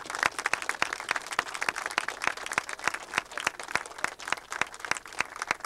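A small crowd applauding, with many separate hand claps heard individually, after a call for a round of applause.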